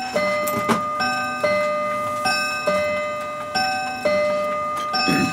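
A clock striking on a two-note strike: a higher note and then a lower one, the pair repeated about every second and a quarter, each note ringing on.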